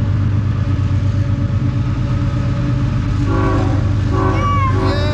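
Diesel locomotive of a CSX train rumbling steadily across the river. About three seconds in, its air horn sounds several tones at once in short blasts, and the last blast is held long.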